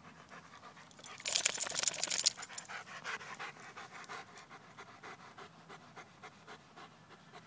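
Large dog panting rapidly, close up, the breaths loudest for about a second shortly after the start.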